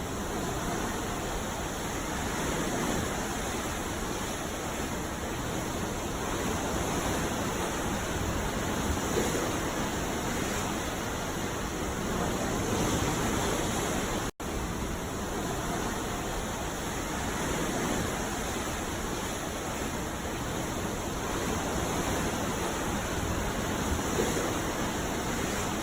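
Continuous rushing wash of sea waves, steady with slight swells, cutting out for a split second about halfway through.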